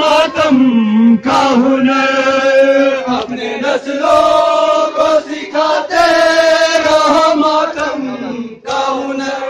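Men chanting a noha, an Urdu mourning lament, into a handheld microphone, drawing the words out into three long held notes with short breaks between them.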